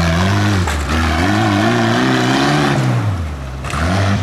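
Tractor engine revving up and down. Its pitch drops about three seconds in and picks up again near the end.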